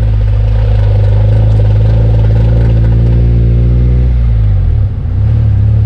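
2001 Honda CR-V rear differential giving a loud, low, steady grinding or roaring drone while the car turns. The drone wavers and shifts pitch about four to five seconds in. The noise comes from a worn rear differential dynamic vibration damper, which the owner shows is cured by replacing it.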